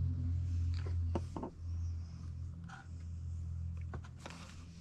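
A steady low hum with a few light clicks and knocks scattered through it, the knocks bunched about a second in and again near the end.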